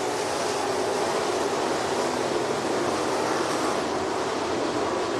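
A pack of street stock race cars running at racing speed on a dirt oval. Their engines blend into one steady sound of many cars at once, with no single car standing out.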